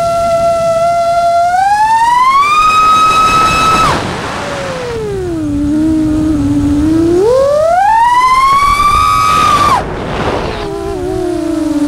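Nazgul Evoque F6 FPV quadcopter's brushless motors whining with the throttle. The pitch holds steady, then rises and holds high, drops suddenly about 4 s in as the throttle is cut, stays low, climbs again, and drops sharply once more near the end.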